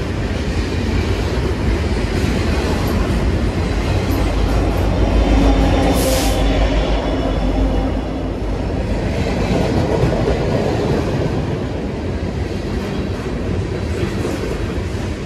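Freight train rolling past at speed, its tank cars, gondolas and hoppers making a steady rumble and clatter of wheels on rail joints. The mid-train Canadian Pacific diesel locomotive (distributed power unit) goes by near the middle, its running engine adding a louder low drone for a few seconds, with a brief high-pitched sound about six seconds in.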